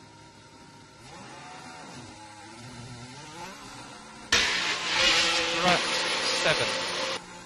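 A Formula 1 car's turbocharged hybrid V6 engine pulling away from the pit box down the pit lane, faint, its note rising and falling. About four seconds in, a much louder hissing burst with a voice in it cuts in and stops abruptly near the end, like a team radio transmission.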